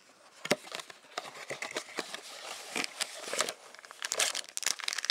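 Plastic packaging crinkling with many quick small clicks and crackles as cards and wrappers are handled.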